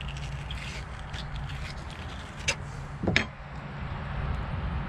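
Steady low hum of a running motor or engine, with two sharp clicks about two and a half and three seconds in.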